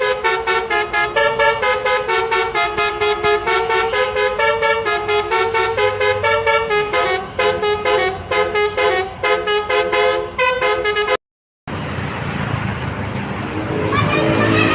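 Bus 'basuri' musical horn playing a fast tune of short, rapidly repeated stepped notes. It breaks off abruptly about eleven seconds in, leaving a brief gap and then road traffic noise.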